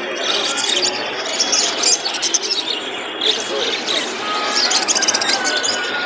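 Many caged birds chirping and twittering over busy market background noise, with a thick run of quick chirps near the end.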